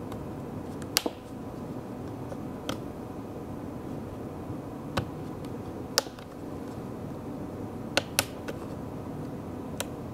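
Sharp plastic clicks, about eight scattered unevenly, as a plastic pry tool works along the edge of a Lenovo ThinkPad E14's bottom cover. The clicks are the snap locks under the plastic releasing.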